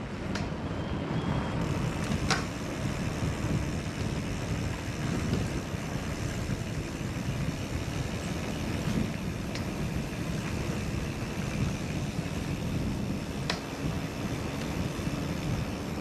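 Steady rushing, rumbling noise with a handful of sharp clicks: wind and trail noise on a mountain-bike action camera's microphone.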